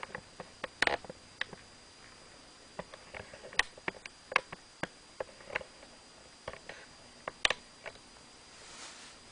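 MacBook Pro starting up: irregular light clicks and ticks, some twenty of them, the loudest about one, three and a half, four and a half and seven and a half seconds in, over a faint steady high whine.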